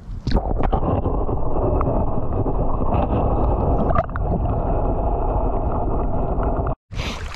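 Lake water sloshing and bubbling, heard through a submerged chest-mounted camera as a bass is let go: a splash as the camera goes under, then a muffled, heavy rumble with no highs. Near the end it cuts off abruptly and wind buffets the microphone.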